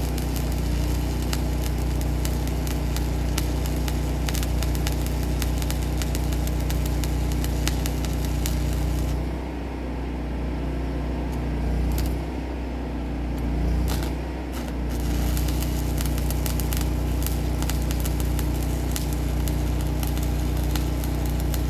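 Arc welding on a steel tank: a continuous electric crackle and sizzle over a steady engine drone. The crackle stops twice, for about a second near nine seconds in and for about two seconds around twelve seconds in, while the engine keeps running.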